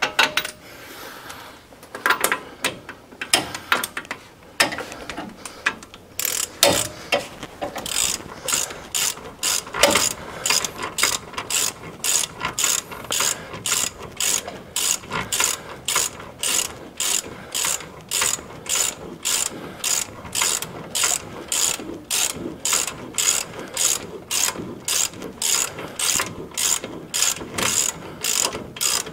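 Hand socket ratchet clicking as it tightens the four nuts holding a Timken unit-bearing hub to a Dana 60 steering knuckle. A few irregular clicks come first, then a steady back-and-forth ratcheting at about two strokes a second.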